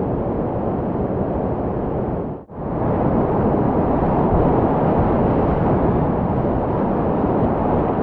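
Steady roar of rushing whitewater rapids. It drops out for an instant about two and a half seconds in and comes back a little louder.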